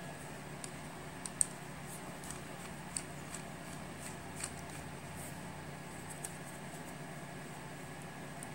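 A few faint, light clicks and taps of small plastic accessories and packaging being handled, over a steady low hum of room tone.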